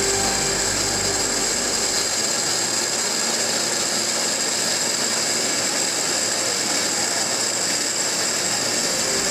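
Yongda CNC stone-machining center's spindle tool grinding into a stone slab: a steady high-pitched whine over a dense grinding hiss. A lower hum drops away about two seconds in.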